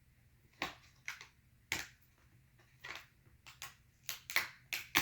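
Plastic snap clips of a Dell Inspiron 15 5567 laptop's display bezel clicking and cracking as the bezel is pried loose with a pry tool: a string of sharp, irregular clicks that come faster toward the end. These are the clips the repairer calls tricky, and he says the prying sounds terrible.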